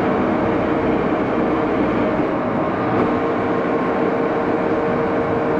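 Axelson gearhead lathe running: a steady, even machine drone with a constant tone in it, with no change in speed.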